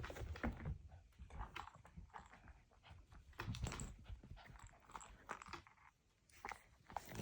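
A dog crunching and chewing, with irregular scuffling and clicking noises.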